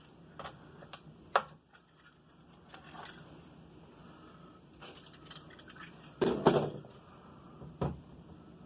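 Scattered clicks, knocks and scrapes of a new battery chainsaw and its packaging being handled, with a louder clatter about six seconds in and a single knock near the end.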